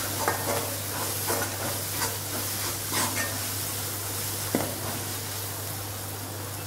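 Tomato-onion masala sizzling in oil in a kadai, with a spatula scraping against the pan several times as it is stirred. The masala has just had chilli powder added and is being sautéed briefly in the oil.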